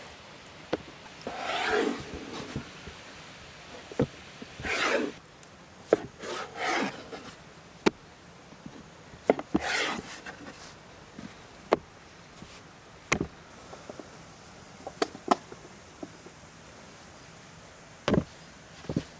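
Large kitchen knife cutting through dough on a floured wooden board: several short scraping strokes, with scattered sharp knocks of the blade on the wood.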